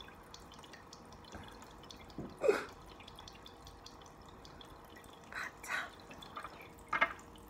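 Small tabletop water fountain trickling, with a handful of separate water drops plinking into the basin, the loudest about two and a half seconds in.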